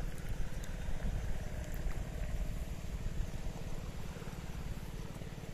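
A small engine running steadily, with a fast, even low pulse.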